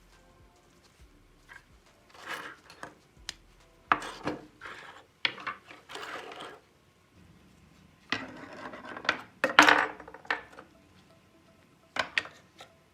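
Hand work on a small diecast model car: irregular scraping and rubbing strokes broken by sharp clicks of small parts, busiest and loudest around two-thirds of the way through.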